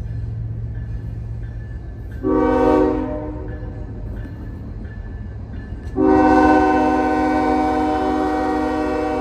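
Train air horn sounding a short blast about two seconds in, then a long blast from about six seconds on, over the steady low rumble of the train.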